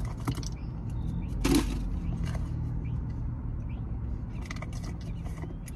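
Steady low hum of a parked car with its engine idling, with light clicks and rustles of handling and one short, louder rustle about a second and a half in.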